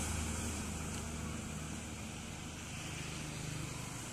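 Diesel truck engine receding as the truck drives away, a low steady drone that fades over the first couple of seconds and then holds faint.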